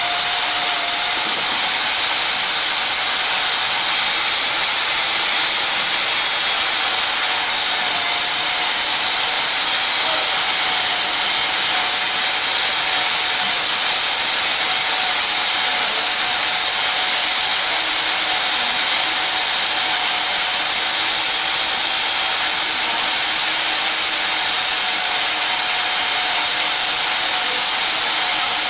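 Rig-mounted diamond core drill running steadily under load as its water-cooled core bit cuts down through a concrete floor slab: a loud, even high-pitched whirring hiss with a faint steady hum beneath.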